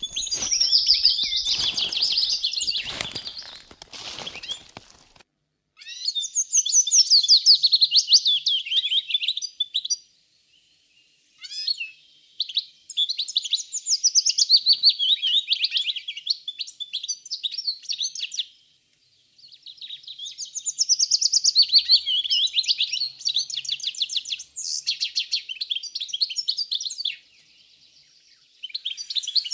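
A songbird singing long, fast, warbling phrases of several seconds each, with short pauses between them and a few brief calls in one of the gaps. Some crackling noise runs under the song in the first few seconds.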